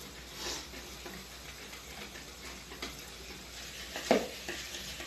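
A spoon stirring cake batter in a bowl: soft scraping with a few light clicks of the spoon against the bowl, the loudest a little after four seconds in.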